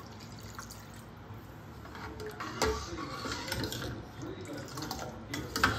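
Water poured from a glass jug into a stainless steel pot of gravy, followed by a steel ladle stirring in the pot, knocking against its side about halfway through and again near the end.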